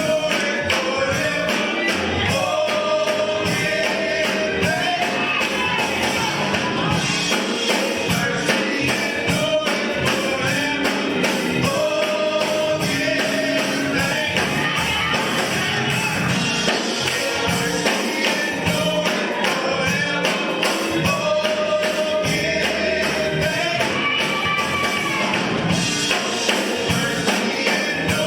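Gospel music: a choir singing over a band with a tambourine keeping a steady beat.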